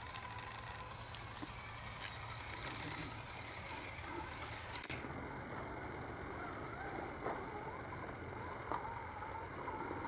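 Axial Deadbolt RC crawler's electric motor and drivetrain whining as it crawls, the pitch wavering up and down with the throttle, with a few faint knocks as the tires climb over the ground and logs.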